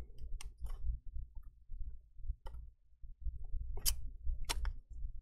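Scattered light clicks and taps from fingers and a plastic prying tool handling the cables inside an opened MacBook Air, over low handling rumble; the sharpest clicks come in the second half.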